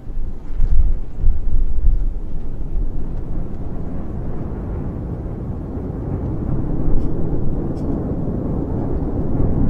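Low, steady rumble of a Falcon 9's nine Merlin first-stage engines during ascent, heard through the launch-site microphone. It grows louder about half a second in.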